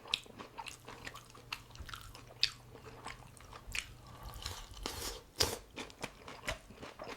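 A person chewing and biting crunchy sweet and sour chicken: irregular crunches, several a second, some louder bites near the end.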